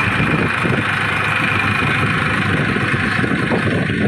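Farm tractor's diesel engine running steadily as the tractor drives along, heard from the seat right behind the bonnet.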